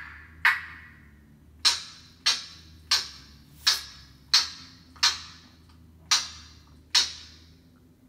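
Congo African grey parrot imitating a construction sound: a run of about nine sharp knocks, each ringing briefly, coming a little more than one a second and stopping about seven seconds in.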